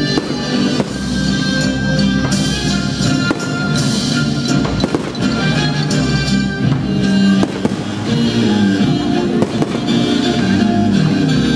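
A firework display going off, with a rapid string of bangs and crackles over loud music.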